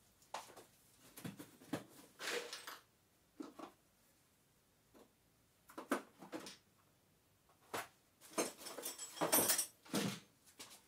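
Pliers and metal parts clicking, knocking and scraping at irregular intervals while the springs inside a cut-open refrigerator compressor are worked on, with a longer scraping noise about eight to ten seconds in.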